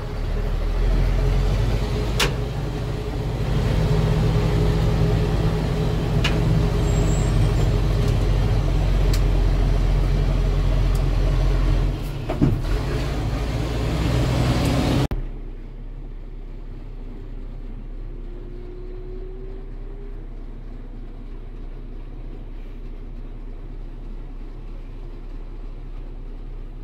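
Truck-trial truck's engine running under load, heard from inside the cab while it drives off-road, with a few sharp knocks and rattles from the cab. About halfway through, the sound drops abruptly to a quieter, duller engine drone.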